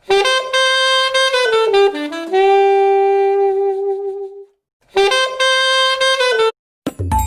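A melodic ringtone from the Huawei Honor 3's ringtone set playing through a Huawei Nova 5T phone's speaker. It plays a short phrase of notes ending on a long held note, starts the phrase again and cuts off abruptly. A brief different tone with a low thump starts near the end.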